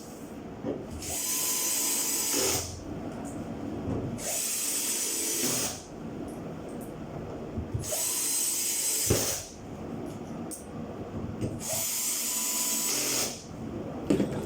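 Power drill or screwdriver running in four short bursts of about a second and a half each, a high whirring whine, with handling knocks in between.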